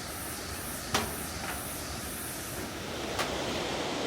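Steady rushing noise of Iguazú Falls' water pouring down, with a couple of sharp clicks about a second in and near three seconds.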